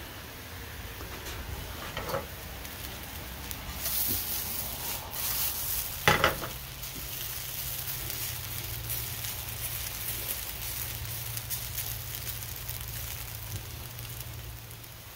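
Shredded hash brown potatoes sizzling as they fry in oil in a pan on a butane camp stove. A silicone spatula stirs and turns them about four to six seconds in, with one sharp knock about six seconds in.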